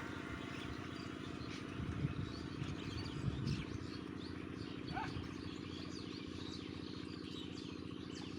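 Many small birds chirping and twittering over a steady low motor hum, with one rising call about five seconds in.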